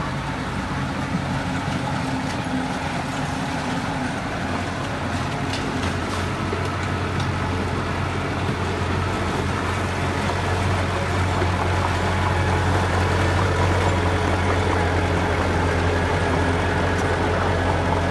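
Diesel engine of heavy earthmoving machinery running steadily with a deep low hum that grows louder about ten seconds in.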